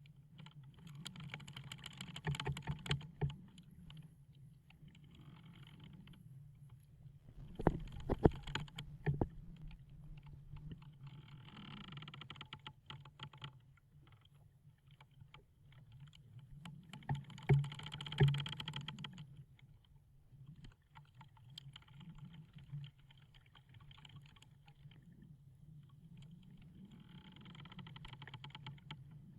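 Wooden ship's hull and timbers creaking under strain: drawn-out creaks of a second or two come every few seconds, with sharp wooden knocks, loudest about eight seconds in and again near eighteen seconds, over a steady low rumble.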